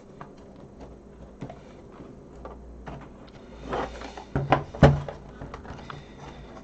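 Small clicks and knocks of a Sinclair QL's plastic case and screws being handled during disassembly, with a brief rustle just before four seconds in and two sharper knocks a second later.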